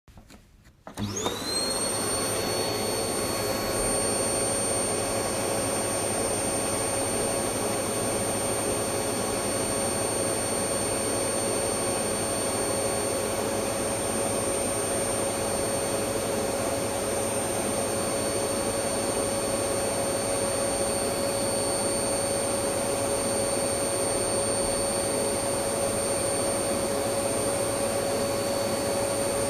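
Electric vacuum cleaner switched on about a second in, its motor whine rising quickly to speed, then running steadily: a high whine over an even rushing noise.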